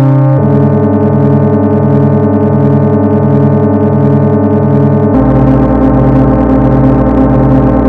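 Synthetic tones generated in Desmos from a sum of sine waves at different frequencies and amplitudes: a dense, steady chord of many pure tones with a slow, regular pulsing beat. It switches to a new chord about half a second in, and again about five seconds in to one with a deeper bass tone.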